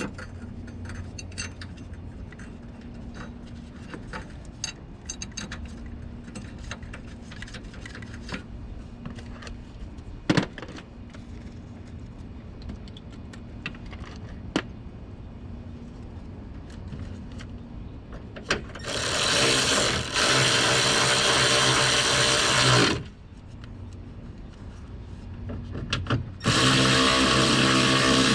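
Light clicks and clatter of parts and hand tools being handled. Then a cordless power tool, such as a drill or electric ratchet, runs for about four seconds, speeding up partway through. After a short pause it runs again near the end.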